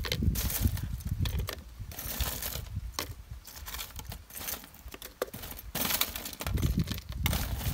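Metal tongs clicking and scraping against a stainless steel tray as fried chicken wings are picked up and dropped into a plastic pitcher: a run of light, irregular metallic clinks.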